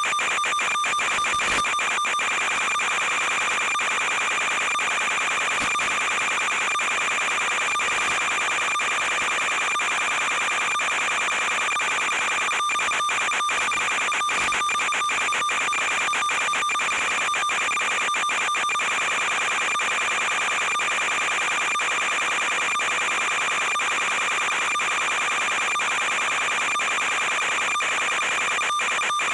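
Steady electronic buzz and hiss with several unchanging high tones, broken by many brief dropouts: noise on the audio channel of an analog FPV video link rather than motor sound, since the pitch does not change as the quadcopter climbs.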